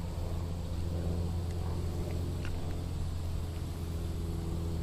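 Steady low mechanical hum, like an engine running, holding one pitch, with a few faint ticks.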